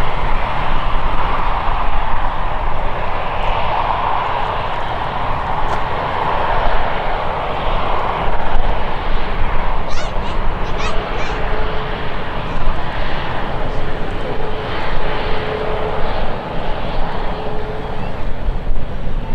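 Jet airliner engines running loud as the plane passes close by, a dense rushing noise over a low rumble that eases a little after about eight seconds.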